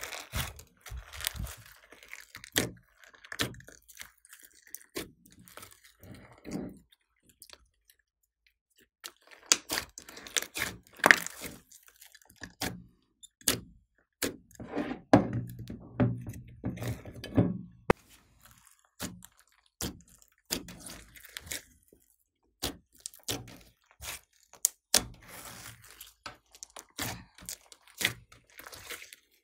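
Glossy slime mixed with sequins and glitter being squeezed, stretched and folded by hand, making irregular sticky clicks and pops with some louder snaps.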